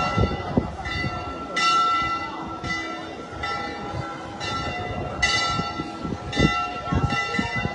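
Church bells ringing, an irregular series of strokes about once a second whose tones ring on and overlap.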